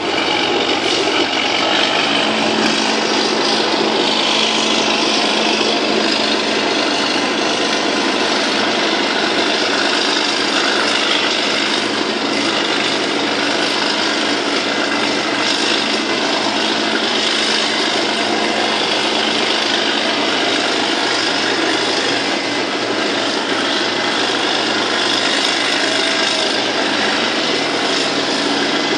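Loud, steady mechanical din of running machinery, unbroken throughout.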